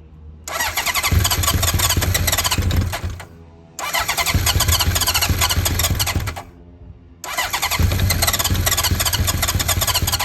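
Honda CB900F's 985cc big-bore inline-four being cranked on the electric starter in three bursts of a few seconds each, with short pauses between them, without settling into a run. This is a cold start after months of storage on Keihin FCR33 flatslide carburettors that have no choke.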